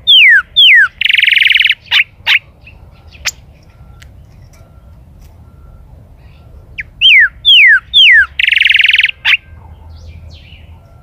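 A chalchalero (golden-billed saltator) singing two song phrases, one at the start and one about seven seconds later. Each phrase is three loud, clear downslurred whistles followed by a harsh buzzy trill and a couple of short notes.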